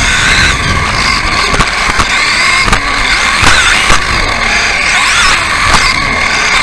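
Onboard sound of an electric RC offroad buggy racing: its motor whines, rising and falling in pitch as the throttle changes. Sharp knocks from the chassis and suspension come several times.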